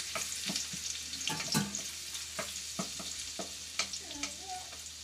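Chopped onion and garlic sizzling in hot oil in a wok, sautéed, while a wooden spatula stirs and scrapes the pan with several short knocks against the wok.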